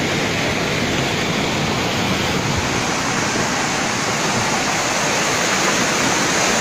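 Floodwater rushing in a fast torrent down a street during a flash flood: a loud, steady rush of water with no breaks.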